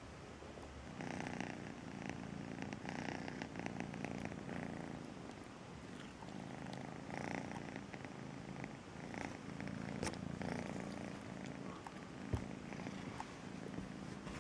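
Young cat purring close up: a steady, rhythmic purr that starts about a second in, with a couple of faint clicks in the later part.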